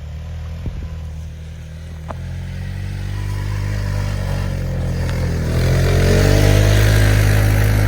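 Motor vehicle engine running under throttle, growing steadily louder over several seconds and holding loud near the end.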